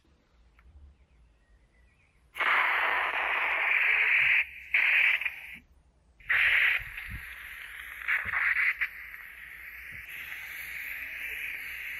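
Hissing spray of air let off in four short bursts, the first about two seconds long, then a quieter steady hiss.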